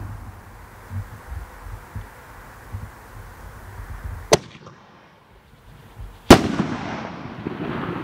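Sir Lancelot aerial firework going off: a low rumble with scattered small pops, then a sharp bang about four seconds in. A louder bang follows about two seconds later, trailing off into a lingering rumble and crackle.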